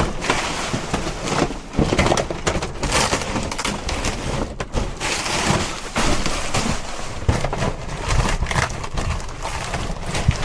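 Trash being rummaged and trodden on inside a dumpster: a steady jumble of crunching, rustling and clattering knocks as things are shifted about.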